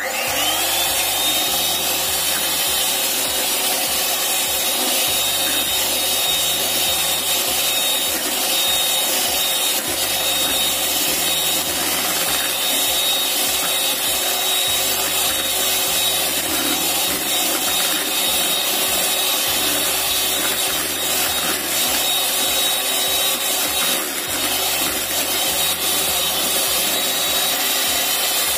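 Electric hand mixer switched on in a bowl of cake batter: its motor whine rises to speed about a second in, then runs steadily as the beaters mix the flour into the whipped egg foam until just combined.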